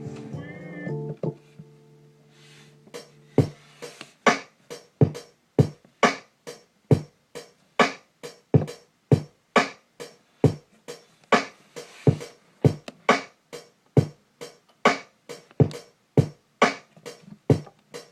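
Drum beat played from a Maschine Mikro sampler. A sampled tonal loop stops about a second in. After a short gap, sharp drum hits come at about two a second, each with a short decay.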